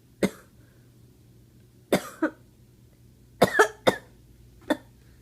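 A woman coughing in short bursts: one cough, a double cough about two seconds in, three quick coughs around three and a half seconds, and one more near the end.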